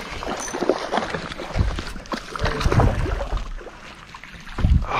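Hooked kokanee salmon splashing at the surface beside a small boat as it is netted: irregular splashes and knocks, with a few low thumps.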